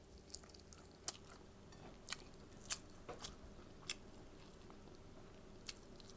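A person chewing a hand-fed mouthful of rice and dried fish, with short wet mouth clicks and smacks at irregular moments, about one or two a second.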